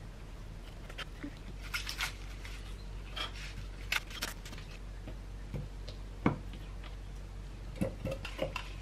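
Hand food prep on a plastic cutting board: scattered light taps and clicks of a kitchen knife on the board as kiwi and kale are cut, with a sharper knock about six seconds in. A faint low hum runs underneath.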